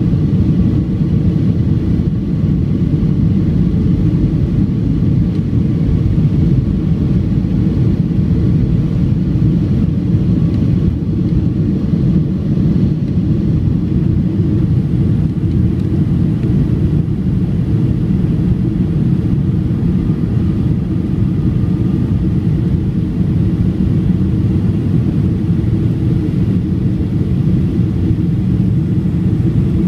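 Cabin noise of a Boeing 757-200 airliner's twin turbofan engines at takeoff power, a steady low rumble, as the jet rolls down the runway and climbs out.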